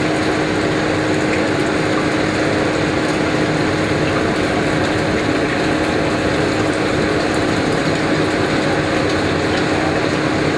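Stirring motor of a BioPro 380 biodiesel processor running with a steady hum, churning oil and methanol in its tank during the reaction.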